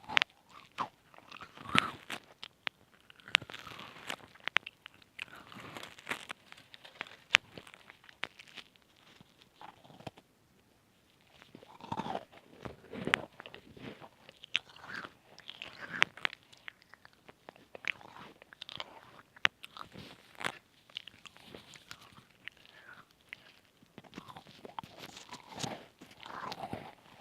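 Close-miked crunching and chewing of chocolate chip cookies, with sharp cracks of bites among softer, irregular chewing.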